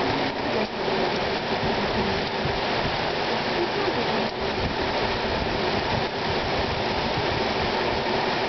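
Heavy downpour: a steady, dense hiss of rain falling on pavement, parked cars and grass.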